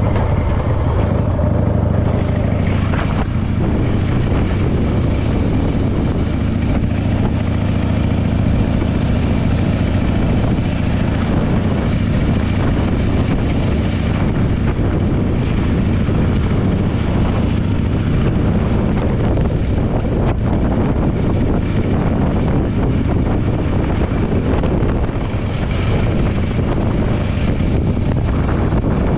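Harley-Davidson Panhead V-twin engine running steadily under way on a chopper, fitted with replacement mufflers and running well, with wind on the microphone.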